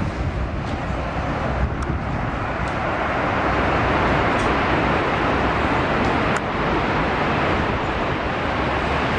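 Steady road traffic noise, a little louder from about three seconds in.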